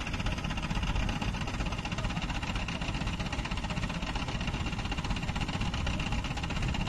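Diesel engine of an ACE mobile crane running steadily at low revs while it holds its hook over a JCB backhoe.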